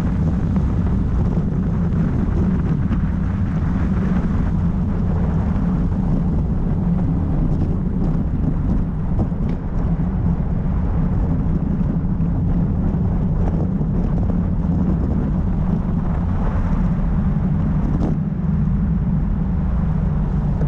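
Steady low rumble of wind buffeting an action camera's microphone as a road bike descends at speed.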